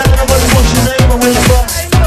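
Electronic dance music with a steady four-on-the-floor kick drum, about two beats a second, under sustained synth tones.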